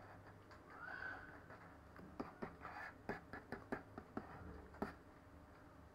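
Faint, irregular clicks and light taps of a computer pointing device, a pen tablet stylus or mouse, being worked while a 3D view is rotated; the clicks cluster between about two and five seconds in.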